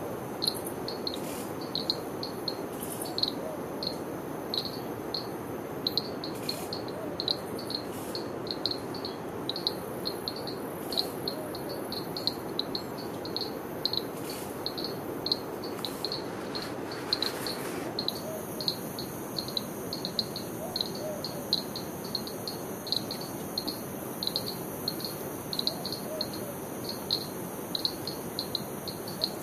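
An insect chirping steadily, short high-pitched chirps about twice a second, over a constant rushing background.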